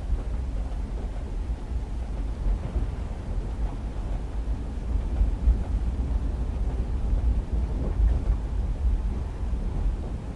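Train-and-rain ambience: a deep, steady rumble of a moving train carriage with rain on the window over it, swelling and easing a little in loudness.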